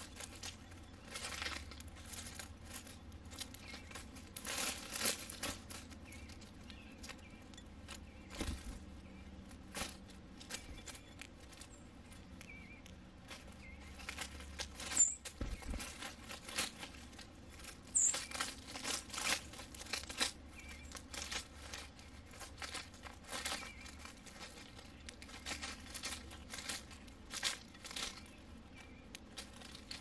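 House sparrows hopping and pecking at sunflower seed among dry leaves: a run of small irregular crackles and rustles of leaves and seed hulls, with two brief high chirps about halfway through and a few seconds later.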